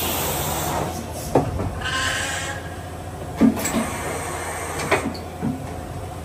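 Hitachi Seiki HS630 horizontal machining center's automatic tool changer cycling: a hiss as the shutter beside the spindle slides open, then the tool carrier and change arm moving in with several sharp metallic clunks.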